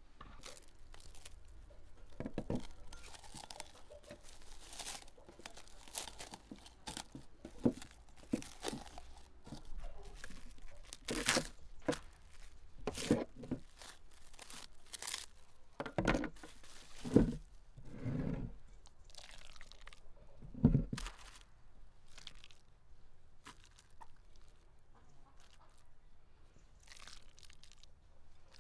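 Clear plastic wrap crinkling and tearing as it is handled, with irregular knocks of bowls and utensils on a wooden table.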